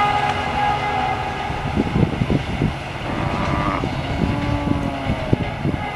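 Rajdhani Express passenger coaches rolling past at speed: a steady rumble of wheels on rail with irregular sharp clacks over the rail joints. Faint ringing tones rise and fall on top.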